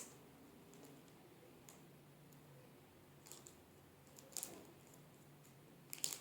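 Near silence broken by a few short, soft clicks, with a small cluster of them about four seconds in and another near the end.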